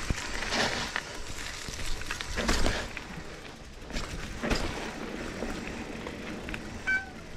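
GT Aggressor Pro mountain bike riding a dirt forest trail: tyres rolling over packed dirt and dry leaves, the bike rattling sharply over bumps several times. A brief squeak comes near the end.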